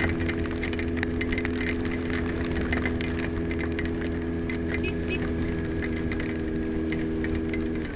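Honda CBX 750's air-cooled inline-four engine running at steady revs while filtering through traffic; the note drops away near the end as the revs fall. Wind and rain noise run underneath.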